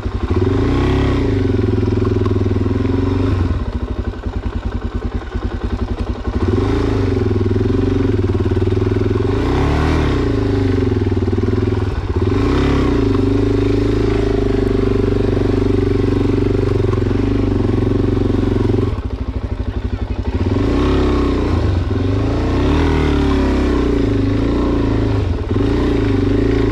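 Suzuki DR-Z400SM's single-cylinder four-stroke engine running under load as the bike climbs a rough dirt hillside, revs rising and falling with the throttle. It drops back to a lower, quieter beat for a couple of seconds about four seconds in and briefly again near twenty seconds.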